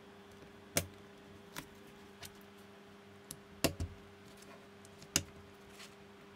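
Plastic LEGO-type bricks clicking and knocking as they are picked up, set down and pressed together by hand: about seven sharp, irregularly spaced clicks, the loudest a little past halfway.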